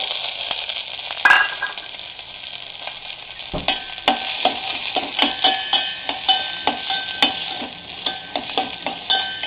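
Chopped vegetables frying in clarified butter in a pan with a steady sizzle. A spatula knocks the pan once, then from about three and a half seconds in scrapes and taps against it repeatedly as the vegetables are stirred.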